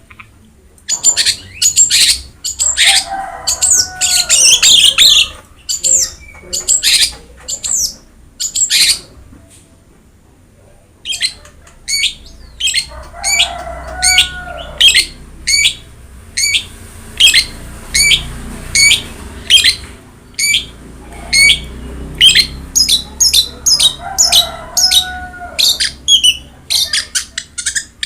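Long-tailed shrike (cendet) singing hard: a rapid series of sharp, high repeated notes, about two a second, mixed with lower warbling phrases. The song breaks off for about two seconds near the middle, then resumes.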